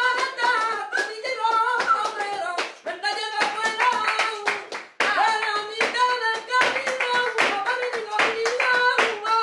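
Flamenco singing over palmas, rhythmic hand-clapping by several people. The sound breaks off briefly about halfway through, then singing and clapping carry on.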